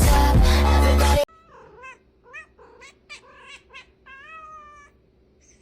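Loud music stops abruptly about a second in; then a domestic cat meows, several short meows followed by one longer, drawn-out meow.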